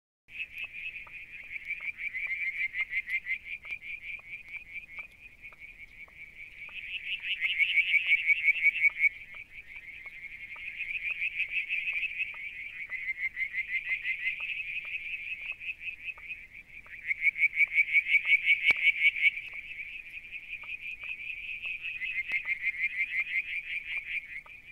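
A night chorus of calling animals: a dense, fast-pulsing, high-pitched trill that swells and fades in waves every few seconds. Faint soft ticks repeat beneath it.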